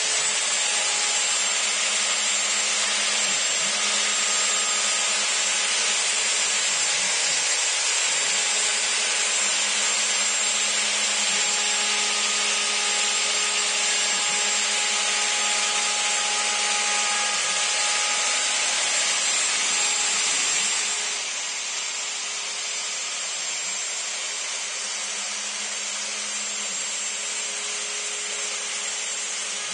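Wood router on a CNC machine, extremely loud, running at full speed with a steady high whine as its bit cuts shallow letter grooves into a cedar board. The noise drops somewhat about two-thirds of the way through.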